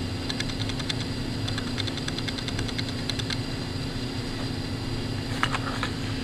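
Steady low mechanical hum, like a fan or air conditioner running in a small room, with runs of faint light clicks in the first few seconds and again near the end.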